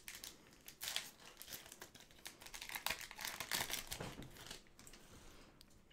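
Foil wrapper of a basketball trading-card pack being torn open and crinkled by hand: irregular crackling that thins out near the end.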